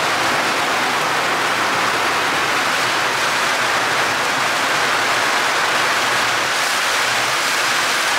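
Hurricane rain and wind: a steady, loud, unbroken rush of torrential rain and gusting wind through the trees.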